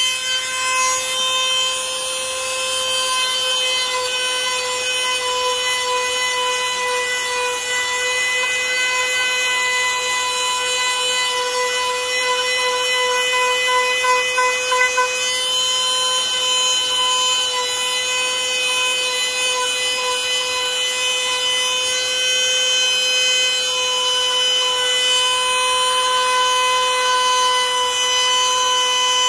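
Handheld power tool running steadily with a high, even whine, the pitch wavering briefly about halfway through as it is worked against the material.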